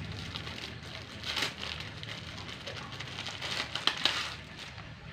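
Clear plastic bag crinkling and rustling as it is handled, with louder crackles about a second and a half in and again around four seconds.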